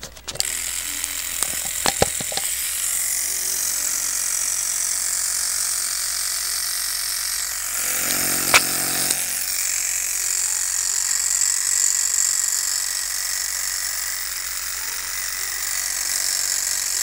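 Homemade rotary tattoo machine, driven by an old printer motor and gear, running steadily. A few sharp clicks sound about two seconds in, and a louder one comes about eight and a half seconds in.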